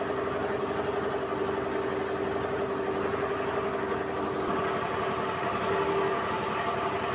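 A motor running steadily: a constant hum with overtones. A short hiss of air comes in about two seconds in.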